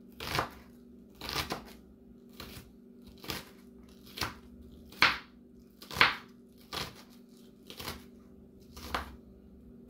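A dull kitchen knife chopping red onion on a wooden cutting board: a series of ten or so cuts, about one a second, stopping near the end.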